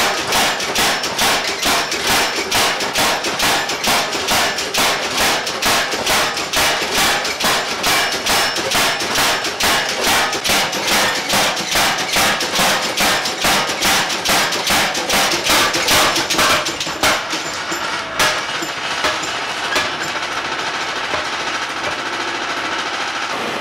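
A power hammer pounding a bar of hot 5160 leaf-spring steel on its anvil in a rapid, even run of blows, about two or three a second. The blows stop about 16 seconds in, leaving a couple of single knocks and a steady machine hum.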